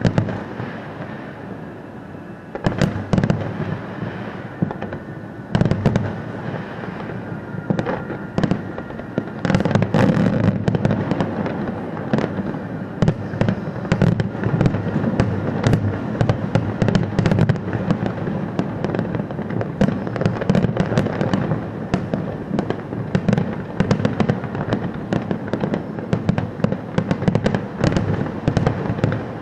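Fireworks display: aerial shells bursting with loud bangs over continuous crackling. The bursts come a few at a time at first, then turn into a dense barrage from about ten seconds in that keeps going.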